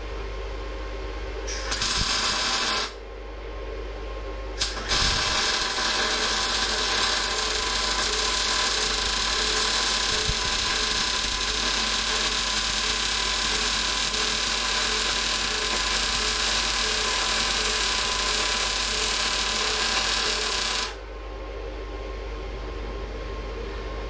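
STAHLWERK MIG 135 M IGBT inverter welder laying a gas-shielded MIG bead with 0.8 mm wire under an argon mix gas. A short burst of arc about two seconds in and a brief strike near five seconds, then one steady run of about sixteen seconds that cuts off sharply.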